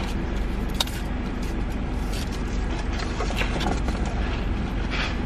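Car idling at a standstill, a steady low hum heard from inside the cabin, with a few faint clicks and knocks.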